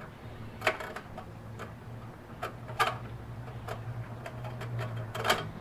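A small hand screwdriver working screws out of a label printer's sheet-metal chassis: a string of irregular sharp metallic clicks and ticks over a steady low hum.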